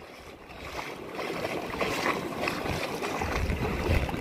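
Shallow water washing over a sandy shore, a steady hiss, with a low rumble on the microphone from about three seconds in.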